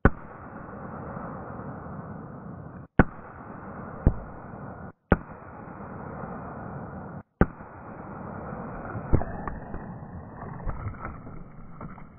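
Glock 43 9mm pistol shots, heard from beside a plastic jug target: six sharp cracks at uneven gaps of one to two and a half seconds, over a steady hiss, with a few faint ticks after the last shot.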